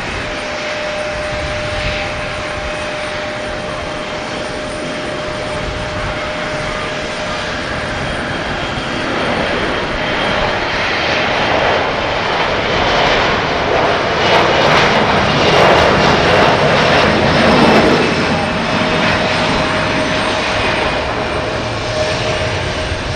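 Boeing 737-500's CFM56-3 turbofan engines at takeoff power: a steady jet roar with a held whine. It grows louder about halfway through, is loudest a little past the middle, and eases off slightly near the end.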